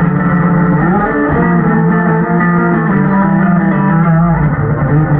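Electric bass guitar played live through a stage amplifier: sustained ringing notes and chords, with a slide up in pitch about a second in. The recording sounds muffled, with the high end cut off.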